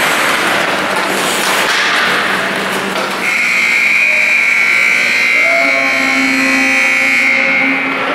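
Arena scoreboard horn sounding one long steady blast, starting about three seconds in and lasting about four and a half seconds, as the game clock runs out in the third period to end the game. Before it, general rink noise of play on the ice.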